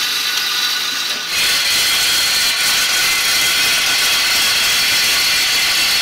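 Steady whirring hiss of coir-spinning ratts (spinning wheels) twisting coir fibre into yarn. The sound shifts abruptly about a second in.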